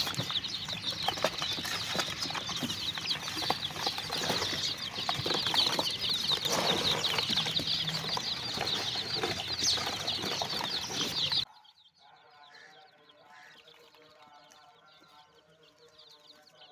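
A box full of baby chicks peeping: a dense, continuous chorus of short high cheeps, mixed with scattered rustles and knocks. The chorus cuts off abruptly about eleven seconds in, leaving only faint background.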